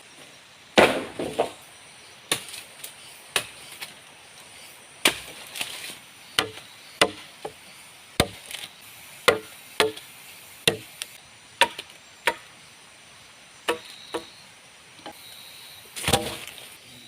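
Wood being chopped with a blade: a run of sharp, irregular chops, roughly one or two a second, with a quick flurry about a second in and another near the end. A faint high insect trill comes in near the end.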